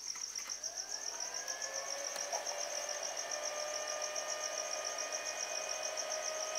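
The battery charger's cooling fan starting up on mains power: a hum that rises in pitch over the first second or two, then holds a steady whine, a sign that the repaired charger is powered and charging. A cricket chirps steadily in the background.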